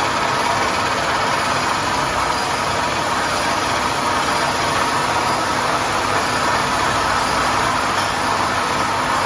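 Crankshaft grinding machine running steadily in a crank regrind, its motor and grinding wheel making an unbroken noise with a steady tone in it.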